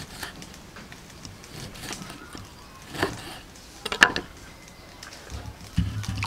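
Kitchen knife cutting limes on a wooden chopping board: a few scattered knocks of the blade on the wood, the loudest about four seconds in. A low rumble starts near the end.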